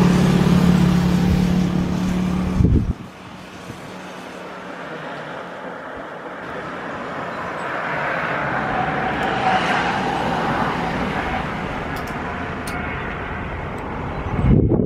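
Jet airliner engines at takeoff power, heard from across the airfield and growing steadily louder through the takeoff roll, with a faint rising whine. It opens with about three seconds of a louder steady low hum that cuts off abruptly, and a brief low rumble of wind on the microphone comes near the end.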